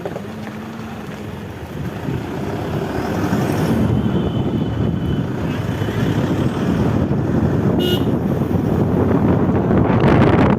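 Toyota Fortuner on the move, road and tyre noise building as it gathers speed, with no drone or growl from the front wheel: the newly replaced wheel bearing is running quietly. A brief high-pitched sound about eight seconds in.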